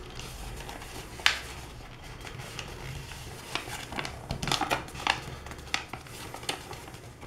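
Sheet of A4 paper being folded and pressed flat by hand: soft rustles and crinkles, with a sharper crackle about a second in and a run of them between about three and a half and six and a half seconds.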